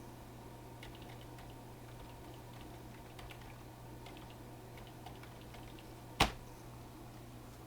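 Light typing on a computer keyboard: soft, scattered keystrokes, with one sharp, louder click about six seconds in, over a steady low hum.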